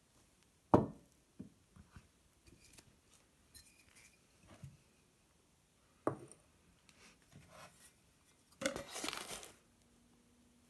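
Handling noises at a wooden kitchen table: a sharp knock a little under a second in, scattered light taps and clicks, another knock around six seconds, then about a second of paper rustling as the paper under the bread loaf is handled.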